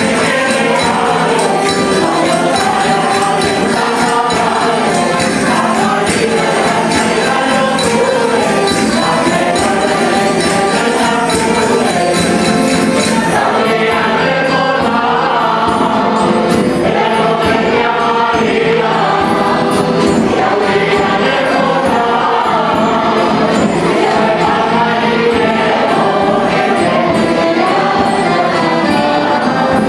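A rondalla performing a song: several voices singing together over strummed guitars and an accordion, with a jingling percussion instrument.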